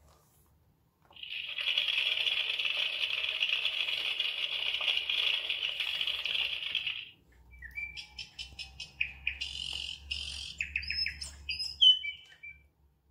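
Children's sound book playing its recorded effects through a small built-in speaker: a crackling campfire for about six seconds, then birds tweeting and chirping in short high calls for about five seconds.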